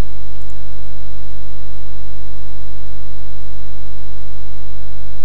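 Loud, steady electrical mains hum with a stack of overtones and a faint high whine, unchanging throughout.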